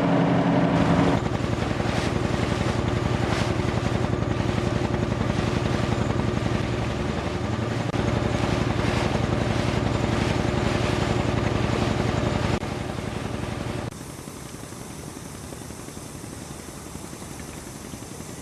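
Construction machinery engines running steadily, the sound changing abruptly a few times as it jumps from one engine to another, quieter one near the end.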